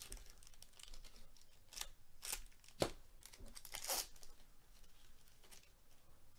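A 2022 Panini Absolute Football foil card pack being torn open by hand, its wrapper crinkling, with a handful of short rips, the sharpest about three seconds in. After about four seconds it falls to a quieter rustle.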